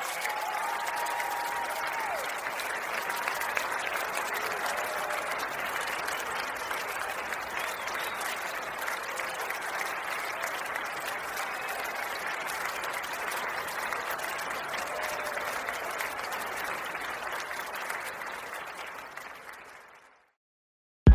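A large crowd applauding steadily, as at the end of a live song, fading out to silence near the end.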